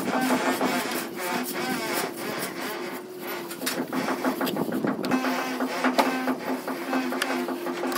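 A straightedge scraping and knocking against the fresh cement render of a round column as it is pressed and drawn along the surface, giving a string of rough scrapes and clicks.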